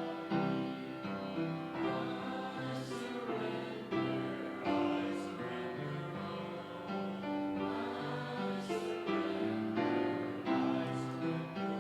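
A group of voices singing a slow hymn in parts with piano accompaniment, the chords held and changing every second or so.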